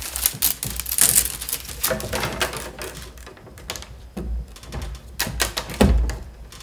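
Peeled willow rods clicking and creaking as they are pierced with an awl and bent upright from a woven round basket base, the work turned on the tabletop. The clicks come irregularly, with a heavier knock about six seconds in.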